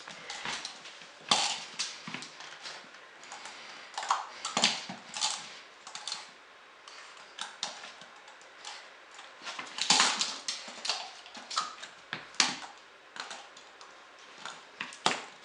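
Puppy chewing and mouthing a small toy: an irregular run of sharp clicks and taps as its teeth work on the toy, with louder clusters about a second in, around four seconds and around ten seconds.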